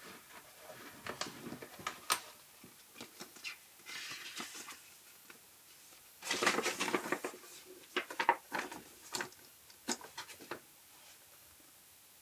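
Hands handling camera filter parts and packaging: a series of light clicks and taps with stretches of rustling, the loudest rustling about six to seven seconds in.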